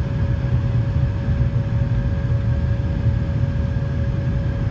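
Steady cabin noise of a McDonnell Douglas MD-90 airliner climbing after takeoff: a low rumble of airflow and its rear-mounted jet engines, with a steady hum running under it.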